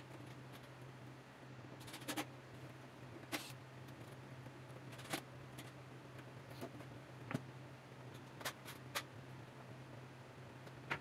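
Scattered light knocks and clicks of cedar boards and tools being handled and set down on a wooden workbench, about eight in all, over a faint steady low hum.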